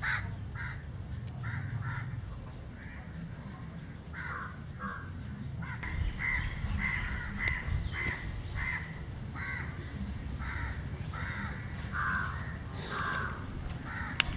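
Crows cawing, many short calls repeated one after another.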